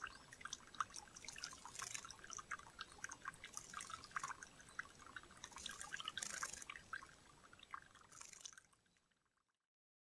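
Water dripping from a small fountain spout into a glass bird bath, with bursts of splashing about two, six and eight seconds in as a Japanese tit bathes. It all fades out near the end.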